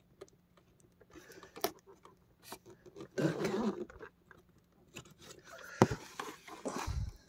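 Cardboard figure box being handled and turned while a craft knife works at its seams: sparse clicks and scratchy scraping, with a dull thump near the end.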